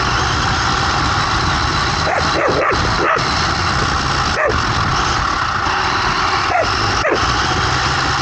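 Battery-electric RC buggy running across grass, its motor and drivetrain giving a steady noise, while a dog gives short barks close by: a quick run of them about two seconds in, then single ones later on.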